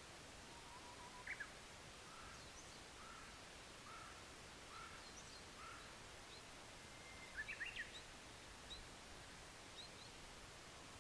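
Japanese bush warbler singing faintly, each song a held whistle followed by a quick rising flourish: one about a second in, and a louder one around seven seconds in. Between them comes a run of five short, evenly spaced notes, with faint high chirps of other small birds over a quiet outdoor background.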